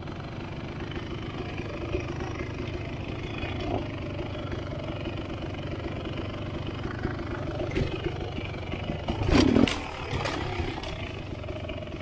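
Dirt bike engine running steadily at low revs while riding slowly along single-track trail. About nine seconds in there is a short burst of loud knocks and rattling.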